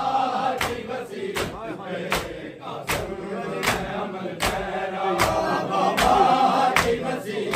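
A crowd of male mourners chants a Shia noha in unison while beating their chests in time (matam). Sharp hand-on-chest slaps fall together about every three-quarters of a second.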